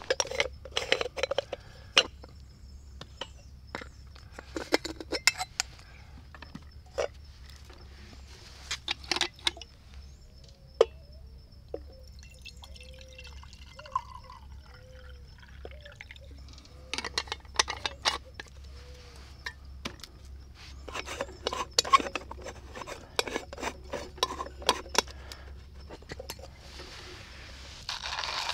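Metal clinks and taps of an aluminium moka pot and its parts being handled, with water poured from a canteen into the pot's base in the middle, gurgling. Near the end a stainless steel hand coffee grinder starts, a steady grinding rasp.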